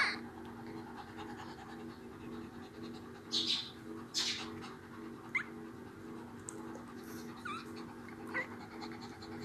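Newborn puppy squeaking faintly several times, short high squeaks that slide in pitch, with a couple of short breathy sounds before them, over a steady low hum.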